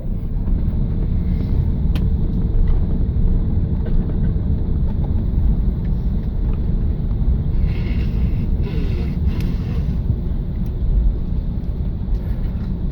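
Cabin noise inside an Airbus A380 taxiing after landing: a steady low rumble of the engines and the rolling airframe, with a faint hum that fades out about halfway through.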